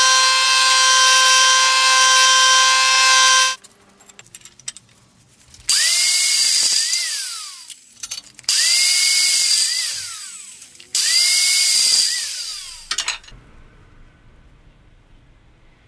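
Milling machine cutter facing a steel billet, a steady multi-tone whine that stops suddenly about three and a half seconds in. Then three separate runs of a power tool cutting the steel bar, each starting with a rising whine and falling away as the tool winds down.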